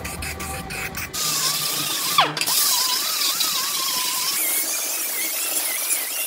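Pneumatic cut-off tool whining with a steady hiss as its thin abrasive wheel cuts steel, the pitch wavering as the load changes. The pitch drops sharply once, a little after it starts, then recovers and runs higher over the last couple of seconds. About a second of background music comes before it.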